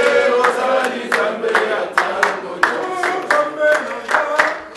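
Congregation singing together and clapping their hands in a steady beat, about two and a half claps a second.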